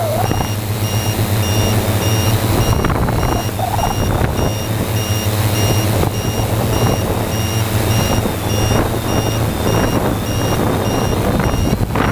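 Motors and 15-inch propellers of a 3DR Y6 multicopter running in a hover, heard from the GoPro on board: a loud, steady low hum with overtones. Rapid, evenly spaced high beeps sound over it.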